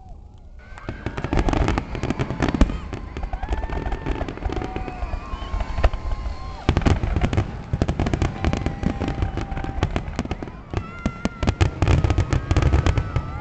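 Fireworks going off in a dense show: repeated bangs and booms, with rapid volleys of crackling near the end. Long whistling tones run over the bangs.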